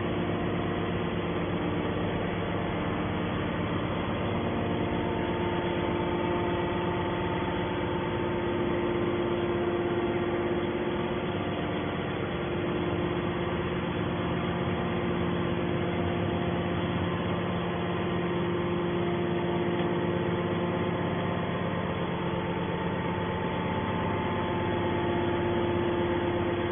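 Hydraulic steel scrap baler running: a steady machine hum with several held tones, its level even throughout.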